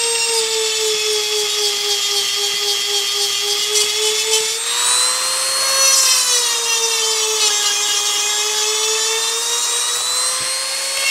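Handheld rotary tool with a diamond grinding bit whining steadily as it grinds a chainsaw chain's cutter tooth. Its pitch sags and recovers twice.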